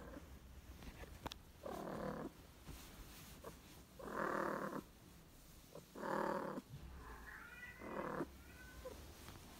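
Domestic cat purring close up, with four louder surges about two seconds apart over a steady low rumble.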